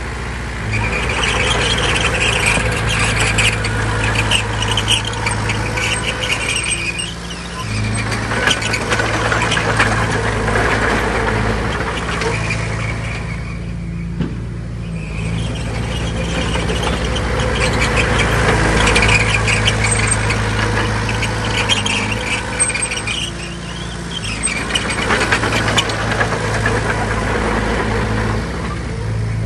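Heavy diesel earthmoving machine, a bulldozer pushing soil fill, its engine running under load and easing off and picking up again several times. A high metallic squeal and clatter rides on top of the engine, fading during the lulls.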